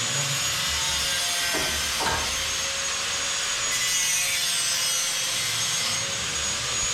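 A power tool cutting metal ceiling furring: a loud, continuous grinding noise with a steady high whine.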